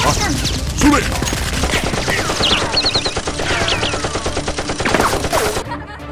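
Rapid gunfire, a dense crackle of many overlapping shots with short falling whines among them, stopping abruptly near the end.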